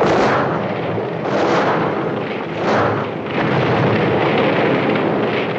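Loud rushing noise of a blaze or blast in a film's sound effects, swelling and easing several times.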